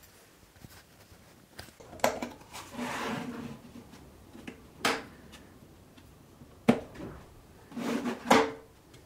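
Plastic drill-bit case being handled: a few sharp plastic clicks and knocks of the case and its lid, with short rattles of the metal bits in their slots. The loudest clicks come in the second half, near the end.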